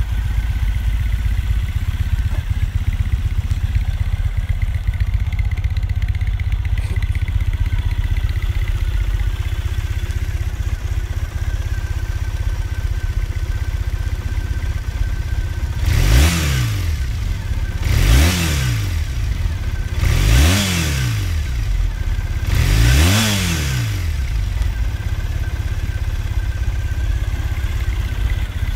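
2014 Triumph Thruxton 900's air-cooled parallel-twin engine idling steadily at about 1,000 rpm. In the second half it is blipped four times, about two seconds apart, each rev rising and dropping back to idle within a second.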